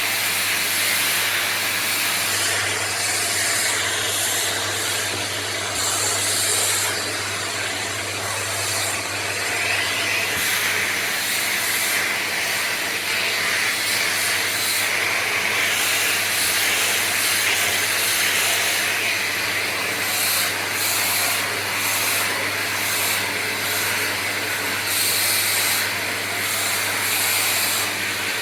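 Cylinder vacuum cleaner running steadily at high volume with a constant low hum, sucking up debris from carpet through an upholstery tool; its power control does not work, so it is probably stuck on minimum.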